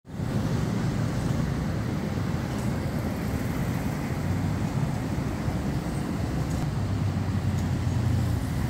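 Street traffic noise: a steady low rumble of vehicle engines.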